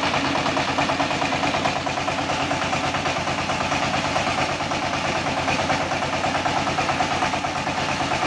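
Single-cylinder diesel engine of a two-wheel power tiller running steadily with a rapid, even beat, driving a rice-hulling mill while paddy is fed through it.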